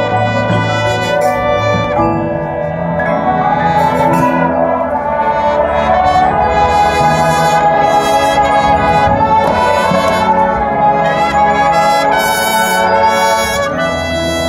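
Marching band playing, led by its brass section holding full chords that shift every second or two, with percussion strokes cutting through at several points.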